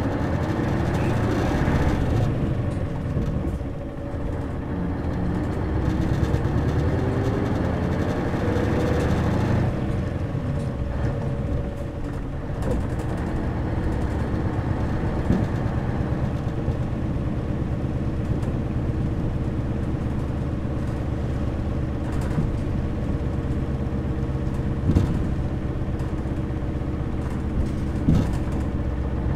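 Running sound of a non-step city route bus heard from inside the cabin. The engine and drivetrain whine rises in pitch through the first nine seconds or so as the bus gathers speed, then settles into a steady cruising drone. Two short sharp knocks come near the end.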